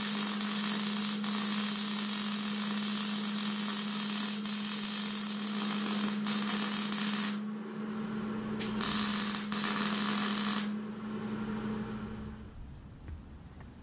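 Millermatic 211 MIG welder laying a bead: the arc's steady crackling sizzle runs for about seven seconds, breaks off, then strikes again in two short bursts before stopping. A steady hum runs under the welding and fades out near the end.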